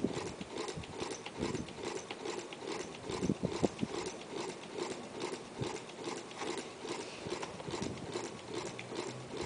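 Newman motor's mechanical commutator switch clicking rapidly and evenly as the rotor spins with a fan on it, one click per revolution, so the click rate gives the fan's RPM.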